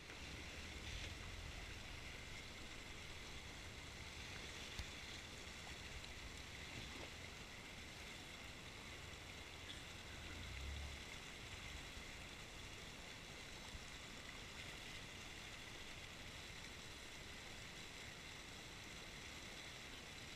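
Faint, steady rush of a rocky creek, muffled by a waterproof camera housing, with a low rumble swelling briefly about ten seconds in.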